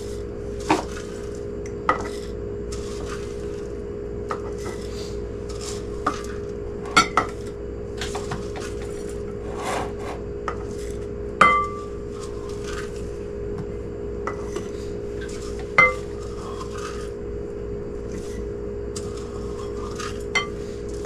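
A small scoop clinking and scraping against a bowl and a glass canning jar as rolled oats are scooped in, in scattered irregular clinks; the loudest, a little past the middle, rings briefly. A steady low hum runs underneath.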